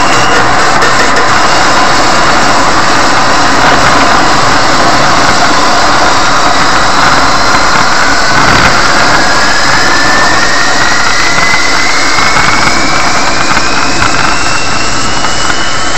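Car driving, heard from inside the cabin through a dashcam: a steady loud rush of engine and tyre noise on a rough road, with a thin whine that rises slowly in pitch over the second half.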